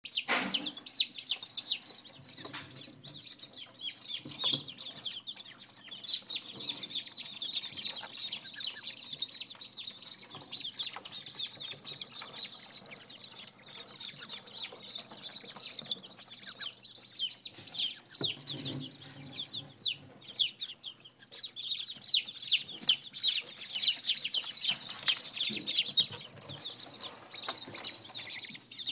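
A brood of young chicks peeping continuously, many short high chirps overlapping with no pause.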